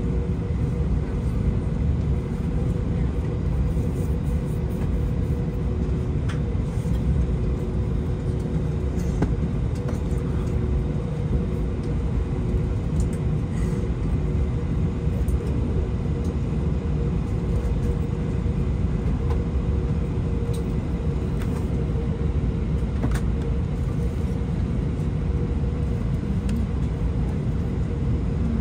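Steady cabin drone inside a stationary Airbus A321-200: a low rumble with two steady hums and a few faint clicks.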